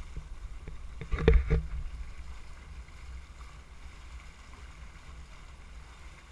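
Dragon boat drifting on a river with its crew at rest: a steady low rumble of wind and water, with a short burst of loud knocks about a second in.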